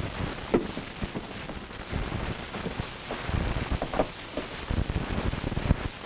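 Hiss and crackle of an old film soundtrack, with scattered clicks and irregular low thumps.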